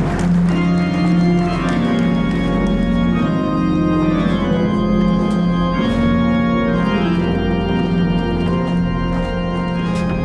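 Organ music: slow, sustained chords held for a second or two each, changing to new chords throughout.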